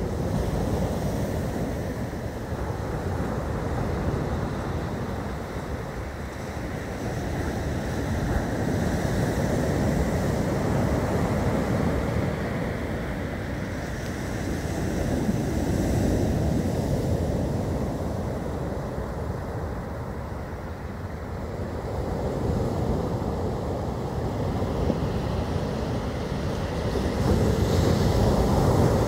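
Rough storm surf breaking on a sand beach in strong wind. The noise swells and eases with each wave coming in and is loudest near the end, with wind rumbling on the microphone.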